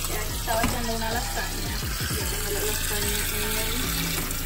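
Water from a kitchen tap running into a glass jar in a steel sink, under background music with a melody.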